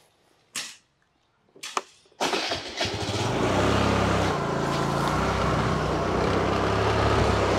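Motor scooter's small petrol engine running steadily under way, with a steady hiss over it. It comes in abruptly about two seconds in, after two brief short sounds in near quiet.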